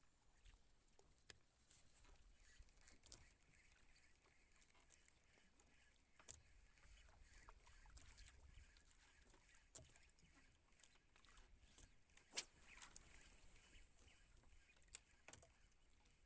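Near silence with faint water sounds and scattered small clicks, and a brief louder splash-like noise about twelve seconds in.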